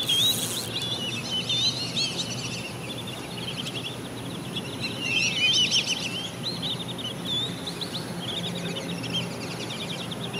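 Songbirds chirping and twittering, many quick calls overlapping, busiest about halfway through, over steady outdoor background noise.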